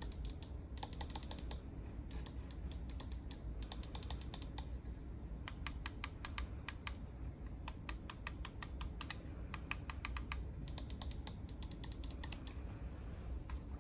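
Lofree mechanical-keyboard-style mouse, its keycap-shaped buttons clicking in quick runs of several clicks with short pauses between. The switches are clicky rather than the silent kind.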